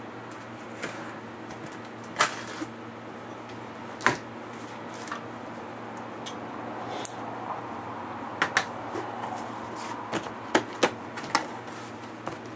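A cardboard shipping box being opened and handled: scattered sharp clicks and knocks of cardboard flaps and the box being moved, about a dozen in all, most of them bunched in the second half.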